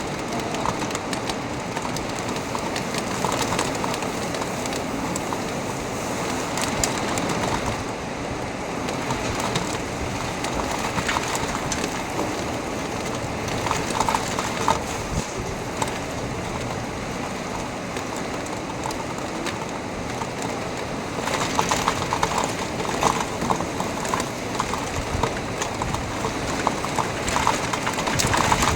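Strong thunderstorm rain falling steadily, turning louder and heavier about three-quarters of the way through.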